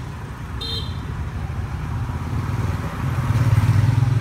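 Street traffic of motor scooters, with one scooter's engine growing louder as it passes close near the end. A short, high horn toot sounds about half a second in.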